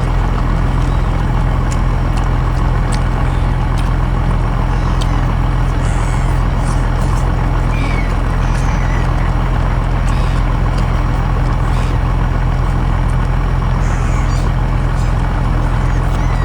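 A steady, loud, low mechanical drone like a running engine, with faint brief high squeaks now and then.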